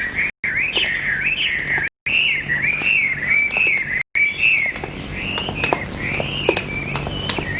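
A high whistling tone that wavers and glides up and down without a break, like a whistled tune, over a low steady hum with faint clicks. The sound cuts out for an instant three times, about half a second, two seconds and four seconds in.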